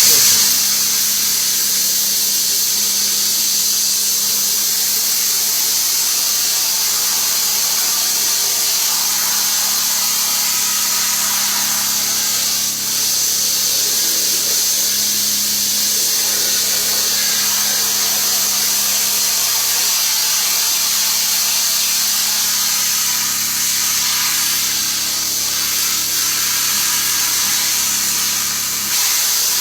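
Electric pressure washer spraying water onto a screen-printing screen, washing out water-based ink: a steady, loud hiss of spray over a constant motor hum. It starts abruptly.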